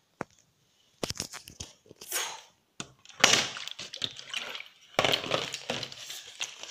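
A partly filled plastic water bottle being handled: crinkling plastic and sloshing water, with a few sharp clicks and taps. Denser rustling handling noise from about three seconds in.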